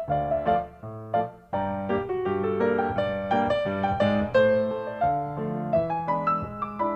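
Background piano music: a lively tune of distinct struck notes over a bass line.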